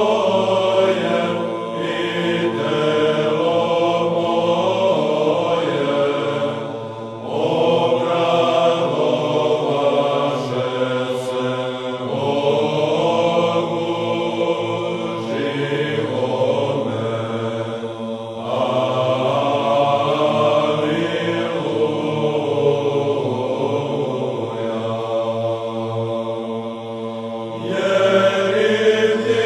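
Slow sung chant as soundtrack music: voices hold long notes in phrases of several seconds, with brief breaks between phrases.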